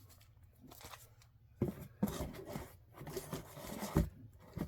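Comic books and their paper or plastic packaging being handled: rustling and crinkling, with a few sharp knocks or slaps from about a second and a half in.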